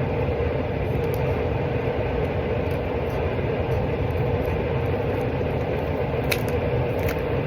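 A steady background drone at an even level, with a faint click about six seconds in.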